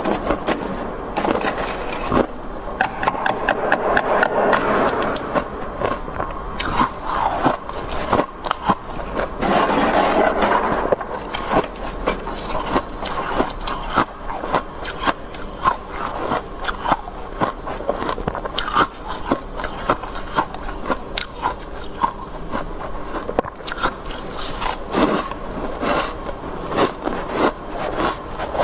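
Metal spoon scraping and scooping thick freezer frost, a run of short crunchy scrapes with a couple of longer drawn-out scrapes about three and ten seconds in.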